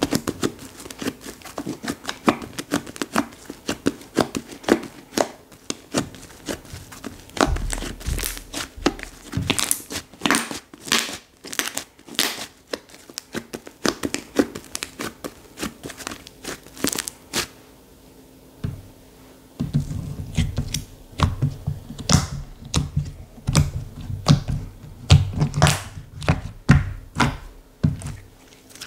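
Slime being worked by hand, giving a dense run of sharp sticky clicks and crackles. About two-thirds of the way through, a lower, thicker squishing sound joins the clicks.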